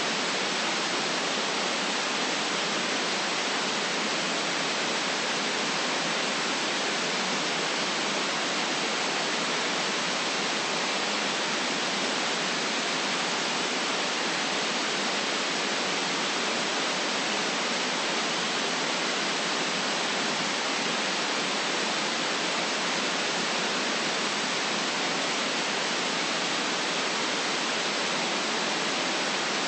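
Generated white noise: a steady, even hiss with little deep bass and no changes.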